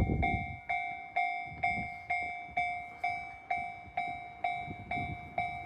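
Japanese railway level-crossing warning bell clanging in a steady rhythm of about two strikes a second, each strike a sharp two-tone ring that fades before the next.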